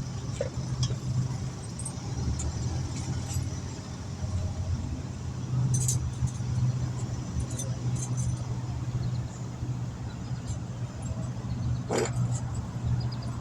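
Light metallic clinks and scrapes of a screwdriver prying balance weights off a steel wheel rim, with one sharper knock near the end. Under them runs the steady low hum of an idling vehicle engine.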